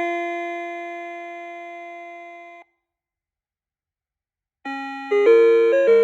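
Electronic chime tones from an ELGIN melody clock. A held closing chord fades and cuts off under three seconds in, followed by about two seconds of silence, and then the next tune starts in quick electronic notes near the end.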